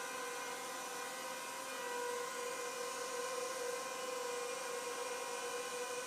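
Zerotech Dobby quadcopter's propellers running with a steady, high-pitched whine that wavers slightly in pitch.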